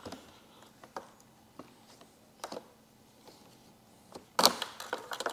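Scattered light plastic clicks and small rattles as wiring-harness push clips are pried loose from the back of motorcycle gauges, with a louder cluster of clicks near the end.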